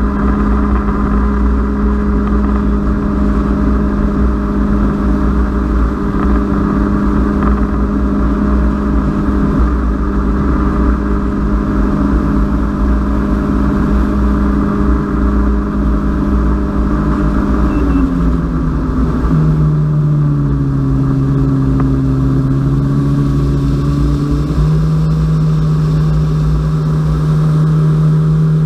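Personal watercraft (jet ski) engine running at speed, a steady drone with wind rushing over the microphone. About two-thirds of the way through the engine note drops, then rises a little and holds.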